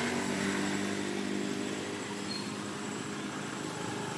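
A steady engine drone, even in pitch, slowly fading away.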